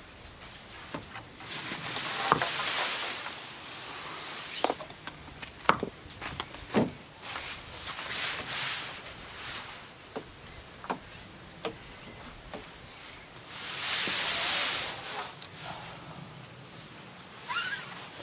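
Large fabric shade sail rustling and swishing as it is pulled out and lifted, in three longer bursts, with scattered light knocks and clicks in between.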